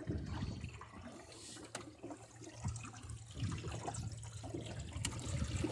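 Water lapping and trickling along the hull of a small sailboat under way, with a few faint clicks.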